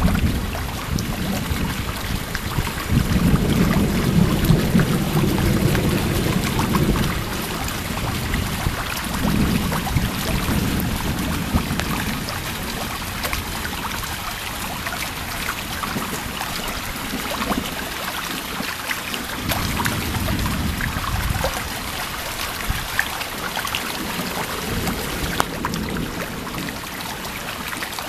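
Heavy rain falling during a thunderstorm, a constant hiss full of small drop clicks. Low rumbling swells and fades several times, loudest about three to seven seconds in.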